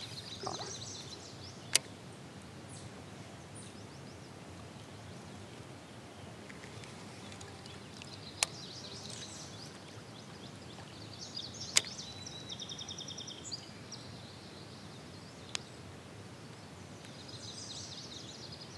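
Quiet lakeside ambience with birds singing in several short spells, one a fast trill about two-thirds of the way in. A few sharp, isolated clicks or knocks sound at scattered moments.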